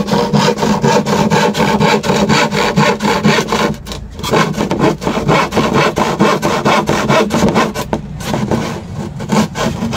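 Handsaw sawing through a flat board in quick back-and-forth strokes, about four a second, pausing briefly twice.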